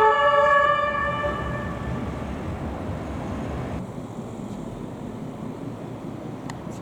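Police car siren holding one note that fades away over the first couple of seconds, leaving steady road traffic noise.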